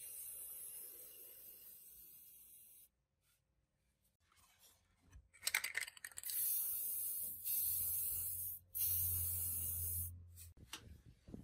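Aerosol spray-paint can hissing in bursts, coating a metal watch case. A long spray stops a few seconds in, a few sharp clicks follow after a pause, and then three more short sprays of about a second each come in quick succession.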